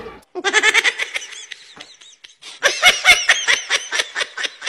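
A person laughing in two bouts, the second a run of quick, rhythmic "ha-ha" pulses.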